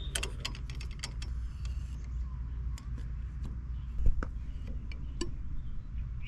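Small metallic clicks and knocks of an adjustable wrench and an old frost-free sillcock being worked loose and slid out of its mounting, with a louder knock about four seconds in, over a low steady background rumble.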